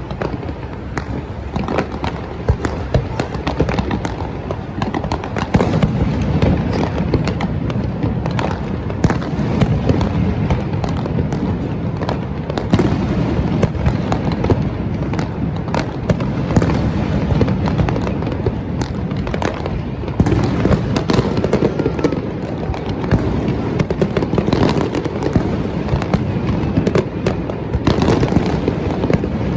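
Fireworks display: a continuous, dense run of bangs, pops and crackles over a steady low rumble.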